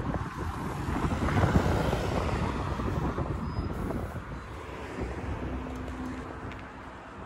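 A Mercedes-Benz city bus's engine running at the stop, with wind noise on the microphone. It is loudest about a second and a half in, then slowly fades.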